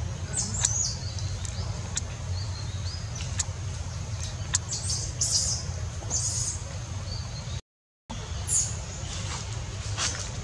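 Forest ambience: scattered short high-pitched chirps and squeaks over a steady low rumble, with a few sharp clicks. The sound cuts out completely for a moment about eight seconds in.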